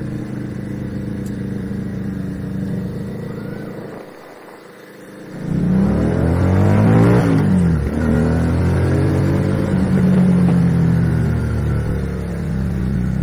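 FKM Victorino 250i motorcycle engine running under way. About four seconds in it dips briefly, then the bike rides by louder, its pitch climbing under throttle and falling sharply as it passes, before settling back to a steady run.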